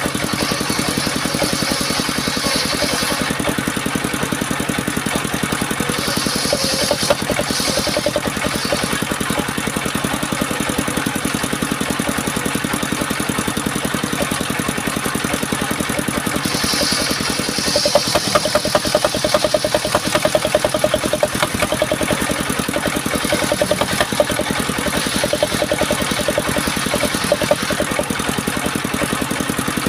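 Engine driving a homemade circular saw rig, running steadily, with a more uneven, louder stretch for a few seconds just past the middle.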